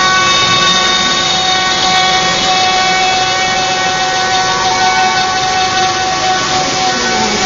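Router spindle of a Joe's 4x4 Hybrid CNC machine running at speed and cutting a round wooden blank: a steady whine over loud cutting noise, with a tone sliding down in pitch near the end.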